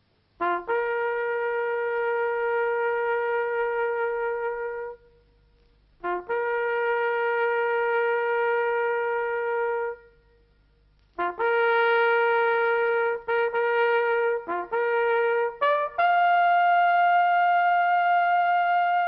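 Solo trumpet playing a slow call of long held notes: two long notes on the same pitch, a run of short separated notes, then a higher note held to the end.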